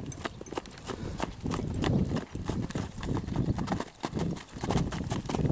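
Draft horse's hooves clip-clopping, a quick, uneven run of sharp hoof strikes, with a low rumble underneath that swells and fades twice.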